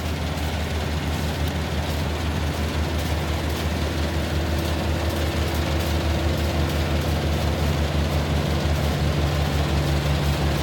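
Rice combine harvester running steadily, its engine giving a low, even throb under a rushing mechanical whir.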